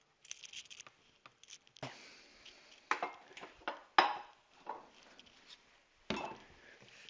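Hands handling the molding and tools: a few separate knocks and taps of hard objects, the loudest about four seconds in.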